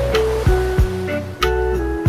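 Gentle lofi music: held keyboard and guitar notes over a deep bass, with a soft kick drum about twice a second and a light hi-hat.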